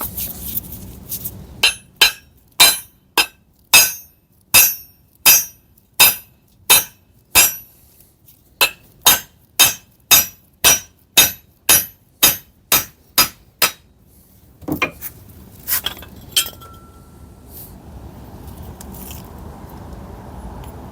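Metal being struck over and over, about two dozen sharp ringing taps at a steady pace, like a hammer tapping on steel, quickening a little about halfway through. A few loose clinks of metal follow near the end.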